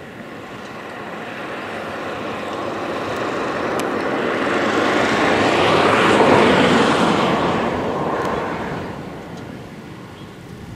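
An aircraft passing overhead: engine noise that swells for about six seconds, peaks, and fades away.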